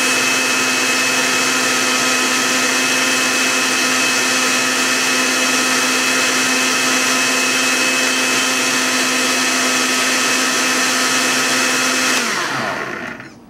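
Countertop blender motor running steadily with a constant whine while it blends a spinach, mango and orange smoothie. About twelve seconds in it is switched off, and its pitch falls away as the motor spins down.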